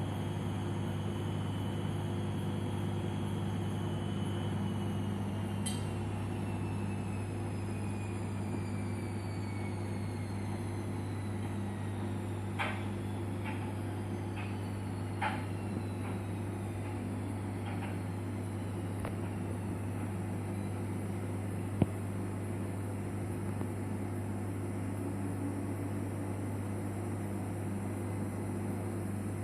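Washing machine running with a steady low hum, while a faint motor whine falls slowly in pitch over the first third as the drum slows. Then come several sharp clicks, one louder than the rest.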